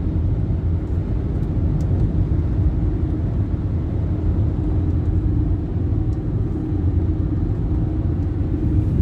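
Car driving along a highway: a steady low rumble of engine and tyres on the road.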